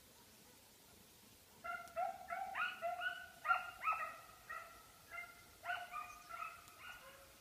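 Hound baying in a quick string of barks, two or three a second, starting about two seconds in: giving tongue while following a hare's trail.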